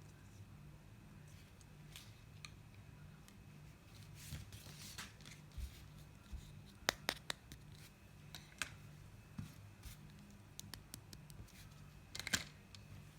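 Small plastic toy kitchen pieces and packaging being handled, making scattered light clicks and taps with a short scratchy rustle, over a faint steady hum.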